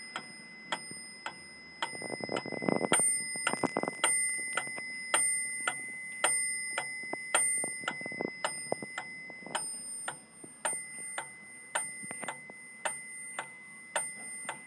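Wittner mechanical pyramid metronome with bell ticking evenly at about two beats a second, its bell tone ringing on steadily under the ticks. A burst of rustling noise comes about two to four seconds in.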